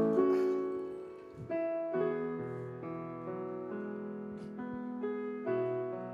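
Piano playing the slow introduction to a ballad, held chords changing every second or so.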